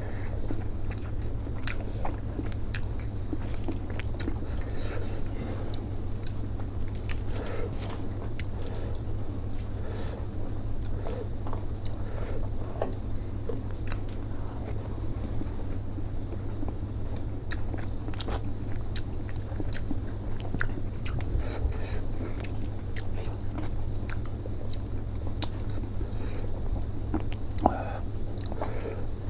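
Close-miked chewing and biting of steamed chicken momos (dumplings): soft, wet mouth clicks and smacks scattered throughout, over a steady low hum.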